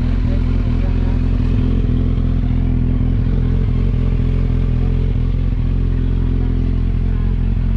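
Kawasaki Z1000 R's inline-four engine idling steadily through an aftermarket Orion slip-on exhaust, with no revving.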